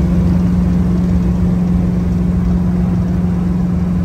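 Big-block Chevrolet V8 of a 1976 El Camino cruising at steady highway speed, heard from inside the cab: an even engine drone with a strong low hum over road rumble.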